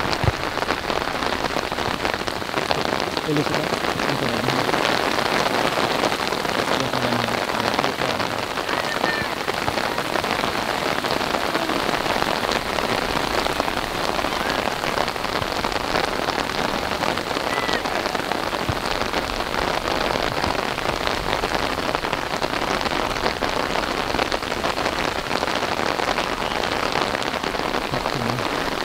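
Steady rain: an even hiss of dense drops striking close to the microphone, unchanging throughout.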